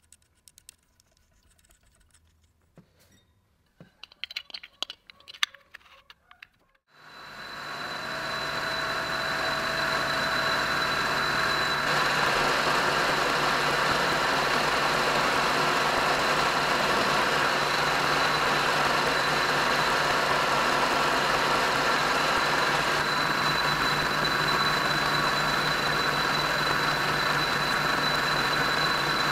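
An electric motor is switched on about seven seconds in. It spins up over a couple of seconds and then runs steadily, a loud hiss over a low hum with a thin high whine. Before it start there are light clicks and rattles of handling.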